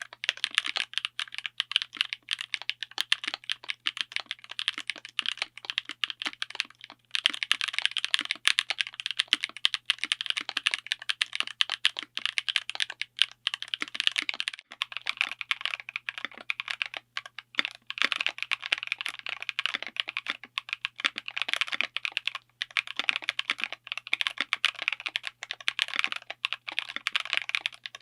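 Steady fast typing on a mechanical keyboard fitted with linear switches: a dense run of keystroke clacks, broken by a few short pauses.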